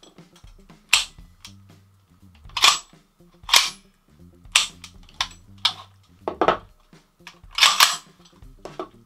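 VFC FN FNC gas blowback airsoft rifle fired on its burst setting: about ten sharp cracks of the shots and cycling bolt at uneven intervals, some in quick pairs, rather than even bursts. The burst setting is firing unevenly, sometimes four shots and sometimes a single one, which the reviewer puts down to a bug in the burst mechanism.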